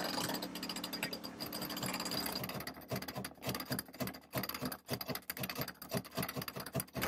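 Sailboat cockpit winch being cranked with a winch handle, its pawls clicking rapidly, about four or five clicks a second from roughly three seconds in, as it hoists a person up the mast on the spinnaker halyard.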